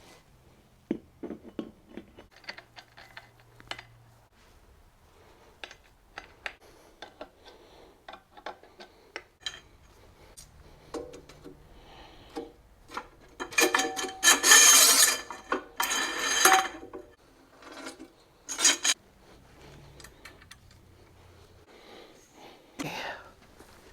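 Steel weight bench parts clanking, knocking and scraping as the bench is moved and set in place. Scattered knocks, with a louder stretch of metal scraping and ringing past the middle and a sharp clank a little later.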